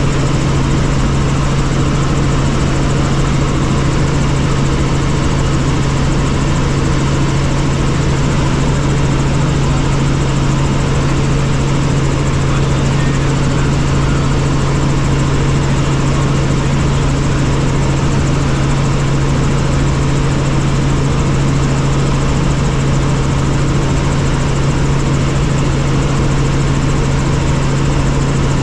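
Helicopter in flight: loud, steady engine and rotor noise with a strong low hum that does not change.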